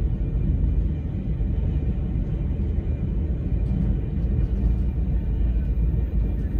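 Steady low rumble of a VIA Rail passenger train in motion, heard from inside the passenger car.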